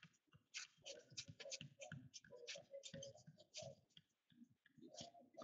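Trading cards being thumbed through one by one, giving a faint, quick, irregular run of card-on-card clicks and slides.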